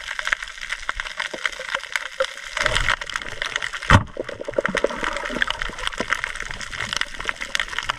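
Underwater sound: a dense, constant crackle of fine clicks over a water hiss. A louder rush of water comes around three seconds in, and a single sharp knock about four seconds in.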